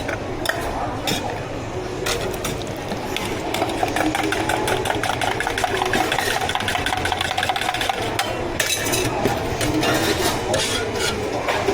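Drink-making at a bubble tea counter: a steady run of clicks, knocks and scraping of cups and utensils, busiest in the middle, over a low background hum.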